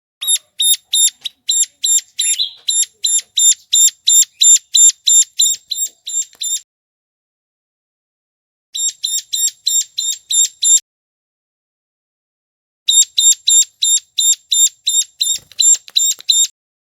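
Ciblek gunung (hill prinia) call played as a bird lure: a rapid series of sharp, high chip notes, about four a second, given in three runs with short pauses between them.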